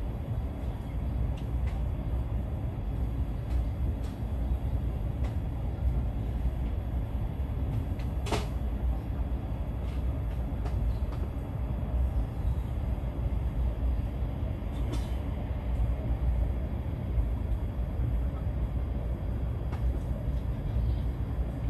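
Inside the passenger car of a high-speed train running at speed: a steady low rumble with faint scattered clicks. A single sharp knock about eight seconds in, and a weaker one a few seconds later.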